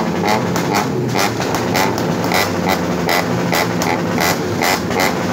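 Modified Volkswagen Polo GT engine running through its aftermarket quad-tip exhaust, with a quick, uneven run of sharp crackles over a steady low hum.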